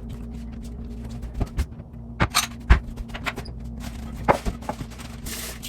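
Scattered knocks, taps and clicks of kitchen things being handled, with a couple of short hissy rustles, over a steady low hum.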